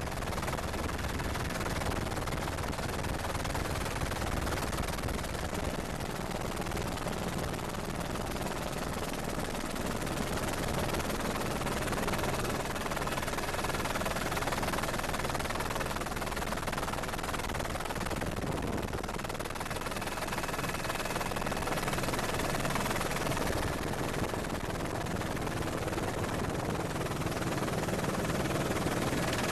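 Helicopter's rotors and engine running steadily, with a faint whine coming in near the end.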